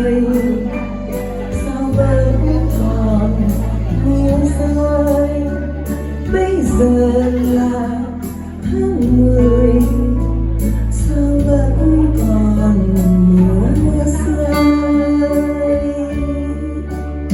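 Instrumental backing music for a Vietnamese ballad, playing without vocals: a steady bass under a melodic lead, with light percussion strokes.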